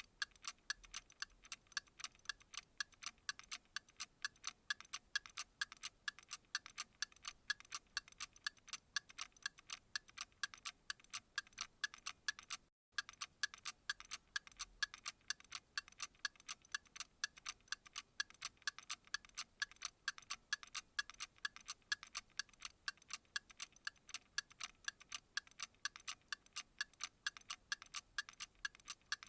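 Clock ticking steadily, a sharp regular tick a few times a second, with a brief silent gap a little before halfway.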